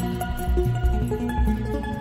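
Instrumental music: deep bass notes under held higher notes, with no singing.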